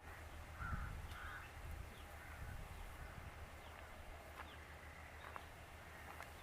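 Faint outdoor bird calls: two short harsh calls within the first second or so, then scattered short falling chirps, over a low uneven rumble.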